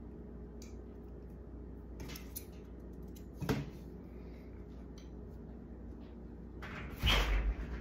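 Light rustling and small clicks of fabric and thread being handled while hand-sewing with a needle, with a louder rustle near the end, over a steady low hum.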